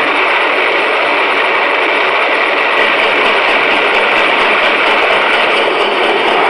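Model goods train of box vans running close past on the layout track, its wheels on the rails making a steady rolling noise.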